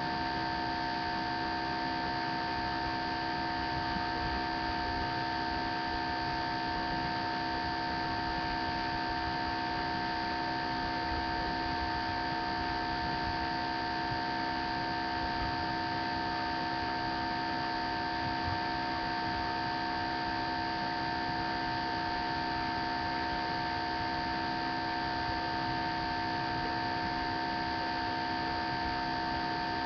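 Steady electrical hum and hiss with several fixed tones, unchanging throughout and with no other sound: the noise of a webcam's recording electronics.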